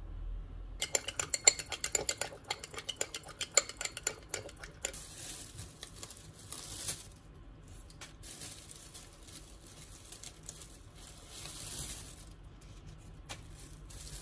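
A spoon clinking rapidly against a small glass bowl as a sauce is stirred, for about four seconds. After that, a plastic bag and lettuce leaves rustle.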